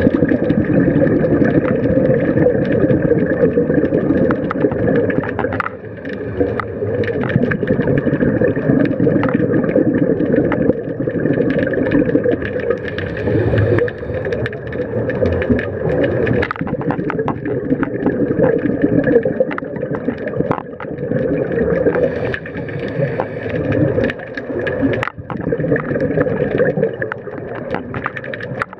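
Underwater ambience picked up by a camera in its housing: a steady rumbling wash with many scattered clicks and crackles.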